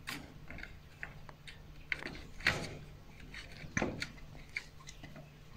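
Scattered clicks, knocks and light rattles as a young vervet monkey scrambles about a wire-mesh cage, the loudest knocks about two and a half and four seconds in.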